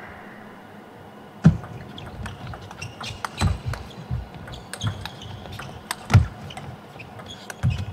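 Table tennis doubles rally: the ball clicks sharply, again and again and at uneven gaps, off rubber-faced bats and the table. Heavy low thuds of players' shoes on the court floor come with the strokes, loudest at about one and a half seconds in and again near six seconds.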